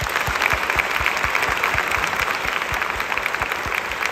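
Audience applauding steadily, a dense crackle of many hands clapping, with low thuds mixed in among the claps.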